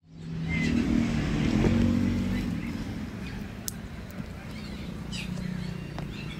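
A motor vehicle engine running, louder in the first two seconds and then settling to a steady low hum, with a few short high chirps over it.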